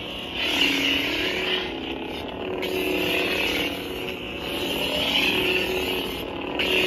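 Pixel-blade lightsaber playing the Civilized Sabers 'Power' sound font: a continuous electric hum that swells and bends in pitch with each swing of the blade, about three swells.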